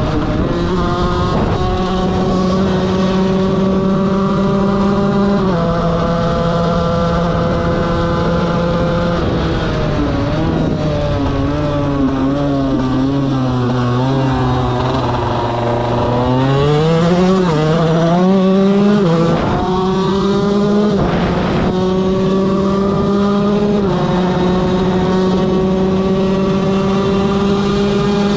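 KTM 125 motorcycle engine running hard at high revs, holding a steady pitch for long stretches. About ten seconds in the revs drop and waver for several seconds, then climb back up to the same steady high pitch.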